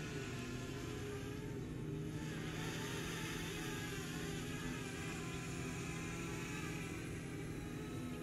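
Small quadcopter drone (DJI Spark) hovering, its motors and propellers buzzing steadily with several slightly wavering pitches over a low hum.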